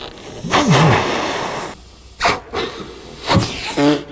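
A man blowing hard by mouth into a car's fuel tank filler to pressurise the tank and push fuel past a suspected airlock to the pump: one long rush of breath starting about half a second in, followed by two shorter puffs.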